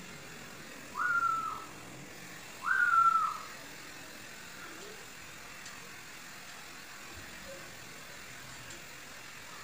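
A person whistling two short notes about a second and a half apart, each sliding quickly up, held briefly, then dipping slightly, over a steady low background hum.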